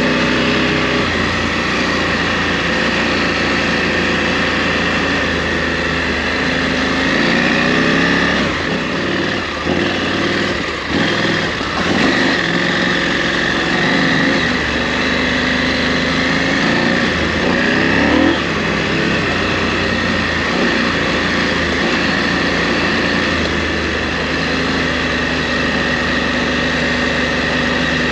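KTM 890 Adventure R parallel-twin engine running under way off-road, the revs rising twice and dipping in between as the throttle is opened and closed, over steady wind and tyre noise.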